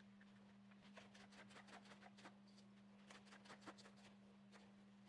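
Faint, irregular taps of a kitchen knife cutting a red bell pepper into strips on a wooden cutting board, over a steady low hum.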